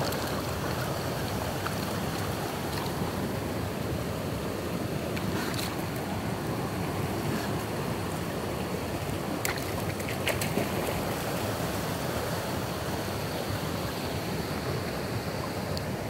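Shallow stream water running over rocks, a steady rushing hiss, with a few faint clicks about six and ten seconds in.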